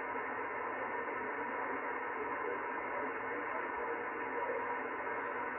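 Henry Tempo One ham transceiver receiving on sideband: steady band noise hissing from its speaker, cut off above and below the narrow voice passband, with no signal tuned in.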